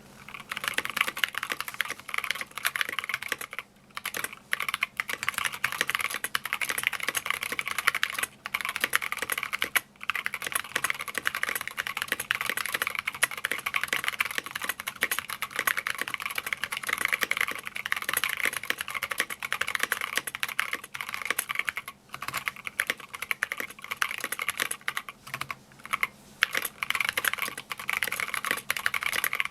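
Fast typing on a custom mechanical keyboard with 65 g tactile Zealios switches and doubleshot SA-profile keycaps in an aluminium case, at roughly 105 words per minute: a dense run of keystroke clacks with a few short pauses.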